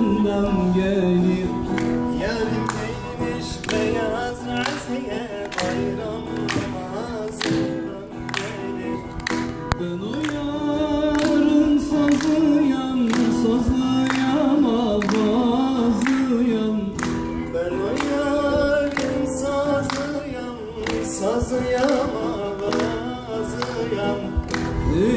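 Live Turkish folk song: a man singing into a microphone, accompanied by strummed acoustic guitars and a long-necked bağlama (saz), with a steady beat.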